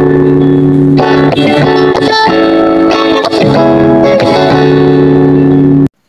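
Background instrumental music led by guitar, with sustained chords that change about once a second, cutting off abruptly near the end.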